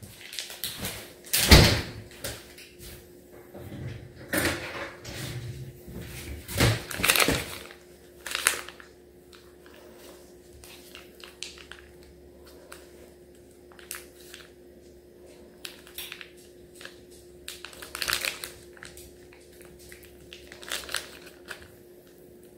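Kitchen handling sounds: several sharp knocks and clatters in the first eight seconds, then soft scattered clicks as a knife cuts pats of butter off a wrapped stick onto a glass bowl of steamed Brussels sprouts, over a steady low hum.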